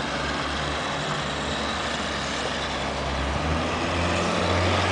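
Bus engine running nearby, a low steady drone that grows louder near the end.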